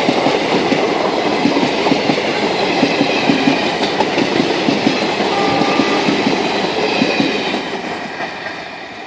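Indian Railways train running past, its wheels clattering over the rail joints, the sound fading away over the last couple of seconds.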